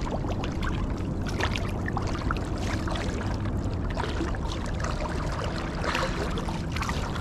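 Shallow water sloshing and trickling, with many small splashes and drips scattered through it.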